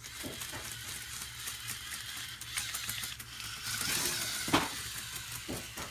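LEGO Mindstorms EV3 tracked robot driving on a wooden floor: its servo motors whir and its tracks clatter, with a few clicks and a sharp knock about four and a half seconds in.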